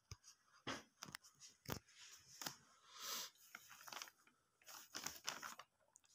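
Faint sounds of a ballpoint pen and sheet of lined paper: a few light taps, then two short scratchy rustles around the middle and near the end.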